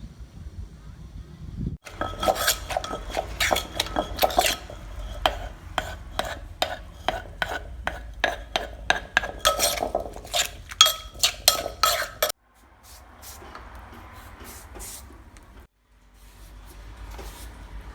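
Kitchen utensils clinking against a pot or dish in quick, irregular strokes, as in stirring or scraping, for about ten seconds. After that comes a softer, steady rustle.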